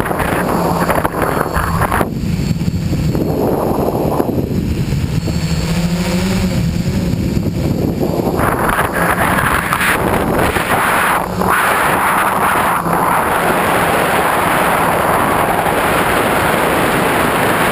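Tricopter's three electric motors and propellers buzzing in flight, heard from the onboard camera, with wind rushing over its microphone. The sound turns duller for several seconds about two seconds in, then brightens again about eight seconds in.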